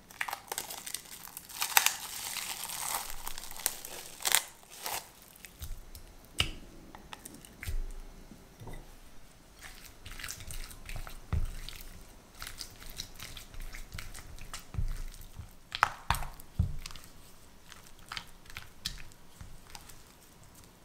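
Plastic cling film crinkling over a glass bowl of chilled pastry cream for the first few seconds. Then a silicone spatula stirs and presses the thick cream in a glass bowl, with scattered soft clicks and knocks against the glass.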